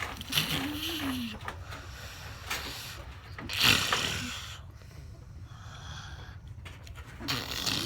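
A young child making silly vocal noises: a short hum that rises and falls in pitch near the start, then a loud, breathy, rasping noise through the nose and throat about three and a half seconds in, and another short vocal noise near the end.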